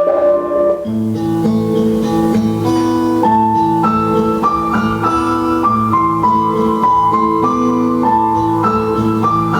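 Instrumental music: a melody moving note by note over steady low chords, with the low notes coming in about a second in.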